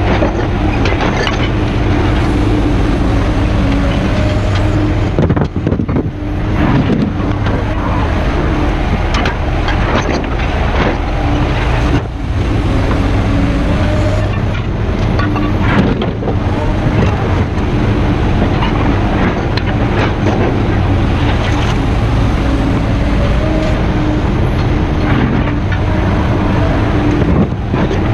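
A heavy engine running steadily, with frequent clanks and rattles of metal over it.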